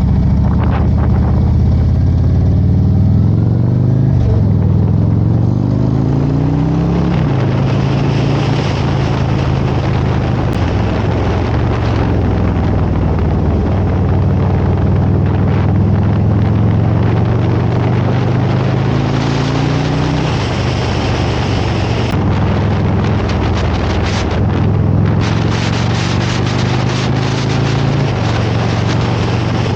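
Harley-Davidson Road Glide's V-twin engine under way on the road. It speeds up with two gear changes in the first seven seconds, then runs at a steady cruise, with rushing wind throughout.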